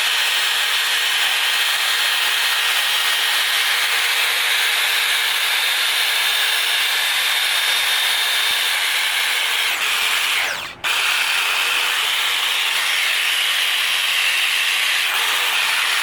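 Handheld power tool abrading rust off a steel motorcycle exhaust pipe: a steady grinding noise over the motor's whine, which stops briefly about eleven seconds in and then starts again.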